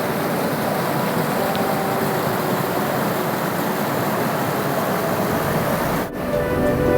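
Waterfall: a steady rush of falling water with no rhythm or pitch. About six seconds in it cuts off and background music comes in.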